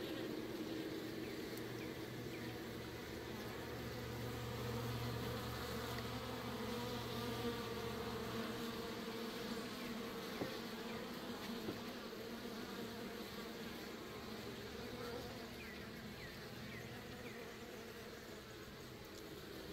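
Many honeybees buzzing together in a steady hum of wingbeats as they fly in and out around a water puddle.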